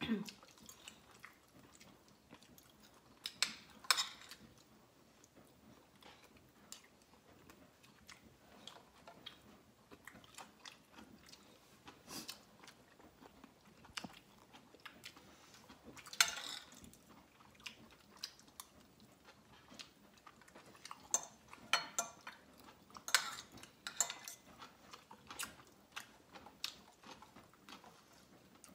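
A person chewing and biting food close to the microphone, with scattered wet mouth smacks and sharp clicks, a few of them much louder than the rest.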